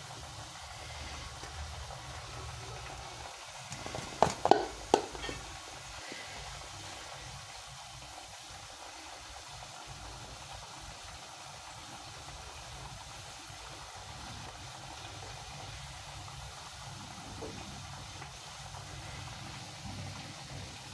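A few sharp clinks in quick succession about four seconds in, from the stainless steel bowl of fried potatoes being handled, over a faint steady hiss.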